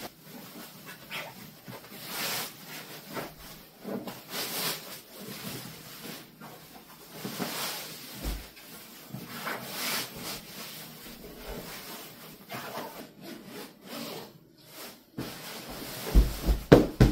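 Fabric rustling and brushing as a pillow is worked into its zippered pillow cover, in a series of swishes. A few dull thumps come near the end.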